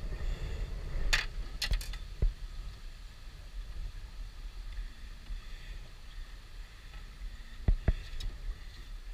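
A few sharp clicks and knocks as a landing net's metal frame and handle are handled against the boat's side while a fish is worked out of the mesh: one about a second in, two more shortly after, and a pair near the end. A low rumble runs underneath.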